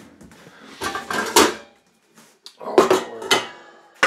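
Stainless steel cooking pot clattering as it is handled and set down on a kitchen counter: two short clusters of metallic knocks with brief ringing, and one more sharp knock near the end.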